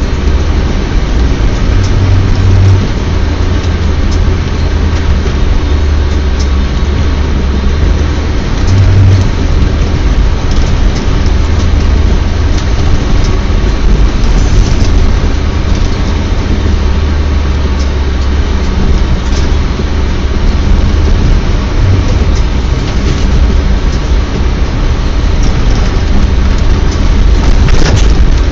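Iveco Massif's 3.0-litre four-cylinder turbodiesel running steadily while the vehicle drives along a snowy track, heard from inside the cabin as a loud low drone, with scattered knocks and rattles.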